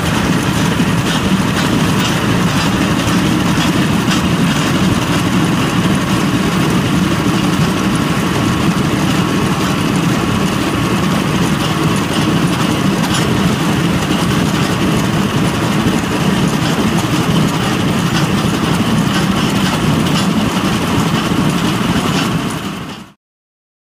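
Concrete milling machine cutting hard concrete 2 cm deep in a single pass: a steady engine drone under a dense, rattling clatter of cutters chipping the surface. The sound fades out quickly near the end.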